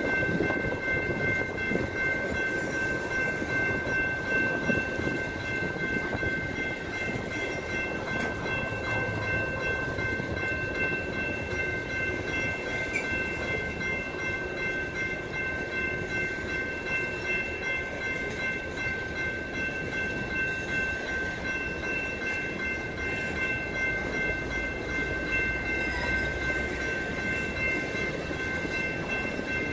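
Freight train of tank cars rolling steadily through a grade crossing: a continuous rumble and clatter of wheels on rail, with a few steady high-pitched tones over it.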